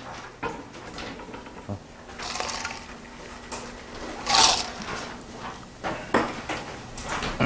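Scattered handling noises in a room: light clicks and knocks, with a louder rustle or scrape about four and a half seconds in and a faint steady hum underneath.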